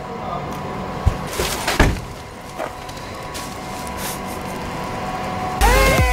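Steady outdoor background with two sharp knocks about one and two seconds in; near the end, loud electronic dance music with a heavy bass beat and falling synth notes cuts in.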